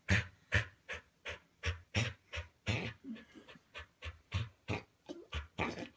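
A dog panting quickly and evenly, about three breaths a second, with a faint short whine once or twice.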